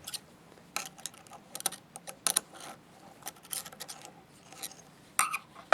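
Small hand tools clicking and scraping on metal: snap ring pliers and screwdrivers working a snap ring out of a locking ring. The clicks are irregular, with the sharpest ones about two seconds in and again near the end.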